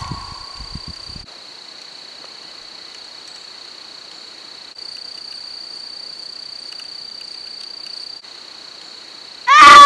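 Steady, high insect chirring like crickets, shifting slightly in level a few times. Near the end a very loud scream cuts in, its pitch rising and falling.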